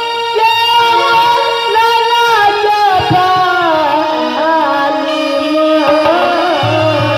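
Live Maithili folk stage song: a solo voice singing an ornamented, bending melody through a stage microphone over steady held instrumental tones, with a low steady tone coming in near the end.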